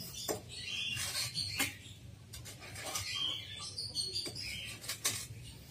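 A hand tool knocking and prying chunks off a dry termite mound of packed earth, a handful of separate crumbly knocks as pieces break away and fall. Birds chirp in the background.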